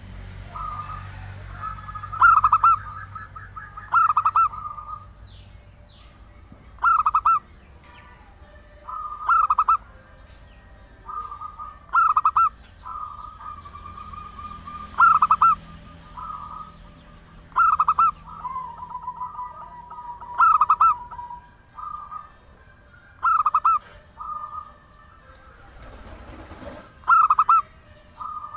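Female zebra dove (perkutut) calling: short bursts of rapid cooing about every two to three seconds, with softer trilled coos between them. It is a female's call to draw in males, used as a lure.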